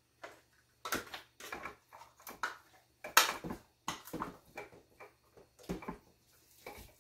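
Seasoned goat meat being tipped from a stainless steel mixing bowl into a slow cooker crock, with a wooden spoon knocking and scraping against the bowl. The sound is a series of irregular short knocks and scrapes, the loudest about three seconds in.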